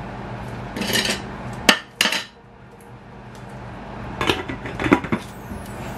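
Metal serving spoon knocking and scraping against a stainless steel pan while creamy sauce is served onto a plate of pasta: a few clinks about one and two seconds in and again around four to five seconds, over a steady low hum.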